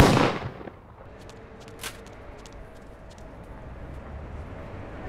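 The fading, echoing tail of a gunshot in the first second. Then a low steady background rumble with a few faint clicks and a short hiss about two seconds in.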